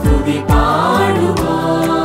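Malayalam Christian devotional hymn: singing voices with a chorus over sustained keyboard chords, with two deep drum strokes about half a second apart near the start.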